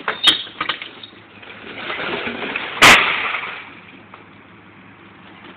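A baseball bat smashing a television set: a sharp hit with a couple of smaller knocks about a third of a second in, then a much louder crash with breaking glass just under three seconds in.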